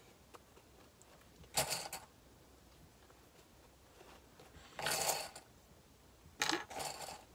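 Sewing clips being snapped onto the edge of layered fabric, with fabric rustling: three short bursts of clicking and rustling, about a second and a half in, about five seconds in and near the end.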